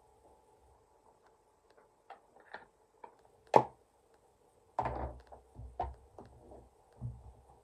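Stamping supplies handled on a craft desk: scattered clicks, a sharp snap about three and a half seconds in, then a run of soft knocks and thumps.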